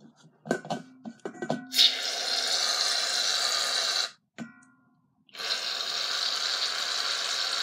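Aerosol can of shaving cream: a few clicks and knocks as the can is handled, then a steady hiss as foam sprays into a steel bowl. The spray stops for about a second past the middle and then starts again.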